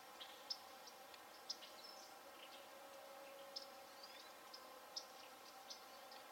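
Faint outdoor ambience: scattered short, high chirps and ticks, a few of them brief gliding notes, over a low steady hum.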